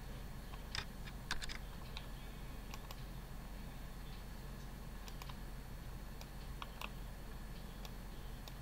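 Scattered clicks of computer keyboard keys and a mouse, with a quick cluster of three about a second and a half in, over a faint steady low hum.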